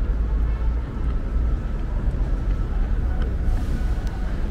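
Busy city street ambience: a steady low rumble of passing road traffic.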